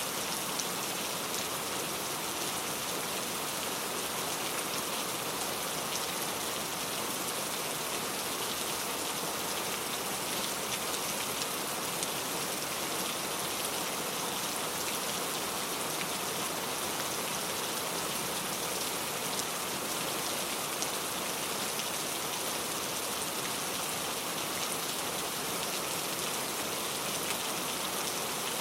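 Heavy rain falling steadily, a dense even hiss of many drops with fine scattered patters on a surface.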